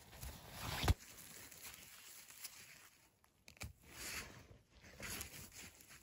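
Soft rustling and tearing of moss and forest litter as chanterelles are pulled up by a gloved hand, with one sharp knock about a second in and a few lighter clicks later.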